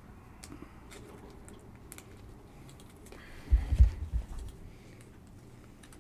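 Panini Prizm football cards being handled and set down on the table: faint clicks and rustling, then about three and a half seconds in a short sliding scrape and a cluster of dull thumps.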